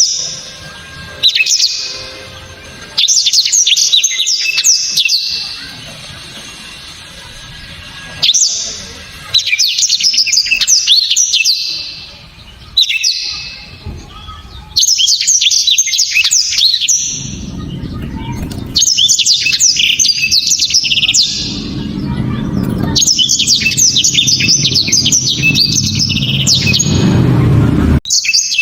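Blackthroat (black-throated canary) singing loud, sharp bursts of rapid trills and warbles, each phrase lasting one to two and a half seconds, repeated about every few seconds. A low rumble runs underneath in the second half.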